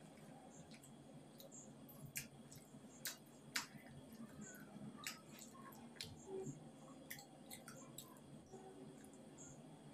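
Faint sounds of eating by hand: scattered soft clicks as roti is torn, dipped in curry on a steel plate and chewed, over a low steady room hum.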